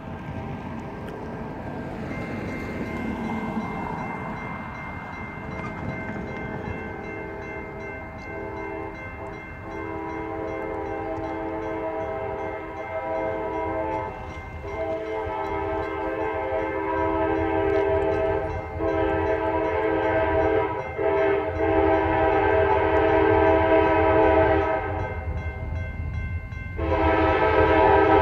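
Approaching locomotives' air horn sounding a series of long blasts with short breaks, growing steadily louder as they near the crossing, the last blast starting near the end and loudest. Under it, the grade-crossing warning bell rings steadily from about two seconds in.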